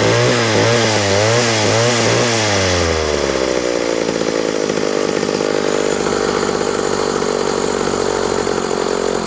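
McCulloch Mac D30 two-stroke chainsaw engine running, revved up and down in quick blips for about three seconds, then dropping back to a steady idle.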